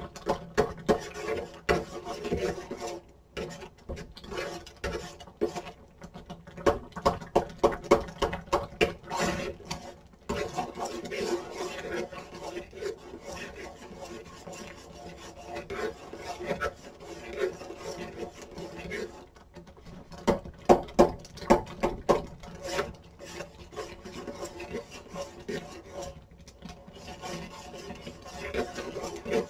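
Kitchen utensil scraping and knocking over and over, with spells of quick strokes, over a steady hum.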